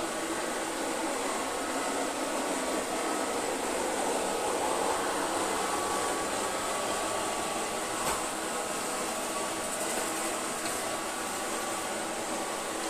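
Kitfort KT-503 robot vacuum cleaner running: a steady whir of its suction fan and brushes with a faint high whine, and a single brief click about eight seconds in.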